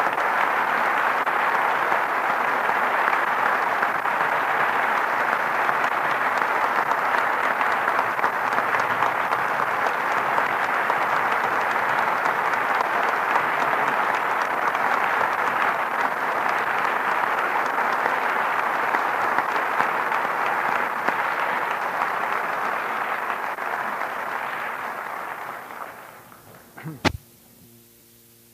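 Audience applauding steadily for a long stretch, dying away near the end. One sharp click follows, then a faint steady hum.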